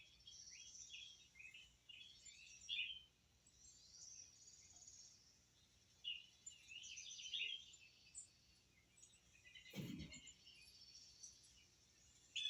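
Faint chirping of small birds, many short calls in scattered bunches, with a soft thump about ten seconds in.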